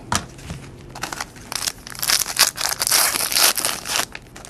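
A trading-card pack wrapper crinkling and tearing as a pack is opened by hand, a run of crackles that is busiest in the middle couple of seconds.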